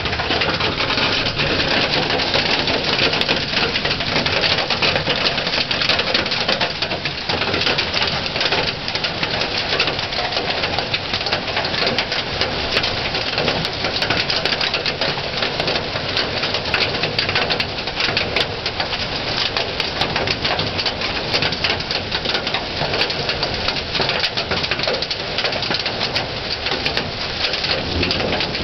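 Hail falling steadily: a dense, even patter of countless small hailstone impacts.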